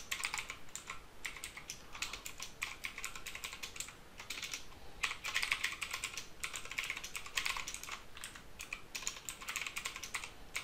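Typing on a computer keyboard: a run of quick, irregular keystrokes, with a short pause about four seconds in.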